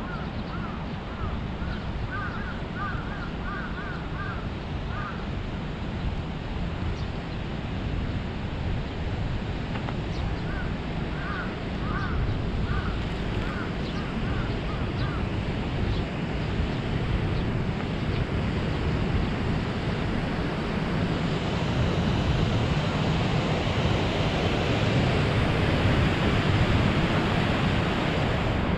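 Wind rushing over a head-mounted GoPro's microphone while cycling, a steady noisy rush that grows louder over the second half. Two runs of short repeated bird calls come through, a couple of seconds in and again about ten seconds in.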